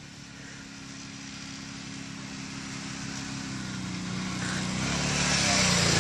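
Four-wheeler ATV engine approaching through snow and growing steadily louder, its note dipping slightly as it nears. A hiss builds up near the end.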